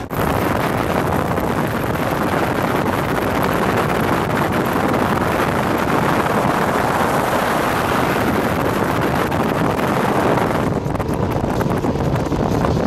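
Wind buffeting the microphone on a moving boat, over the rush of water and boat engine noise. The hiss thins out about eleven seconds in.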